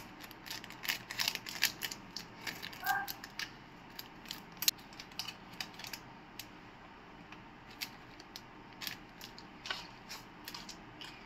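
A small clear plastic packet being cut open with scissors and handled: a quick run of snips and crinkly clicks for the first couple of seconds, then scattered plastic crinkles as it is opened and tipped out.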